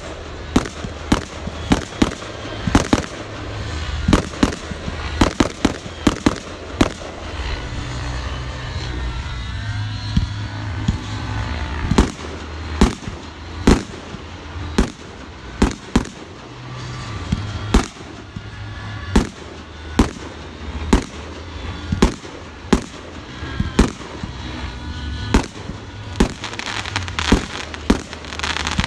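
Fireworks display: aerial shells bursting in a rapid, steady run of sharp bangs, about two a second, over a continuous background rumble.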